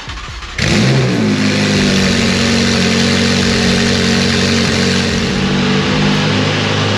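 Ferrari 488 GTB's twin-turbocharged 3.9-litre flat-plane-crank V8, breathing through an aftermarket exhaust, firing up about half a second in. The revs flare briefly, then it settles into a steady, loud high idle.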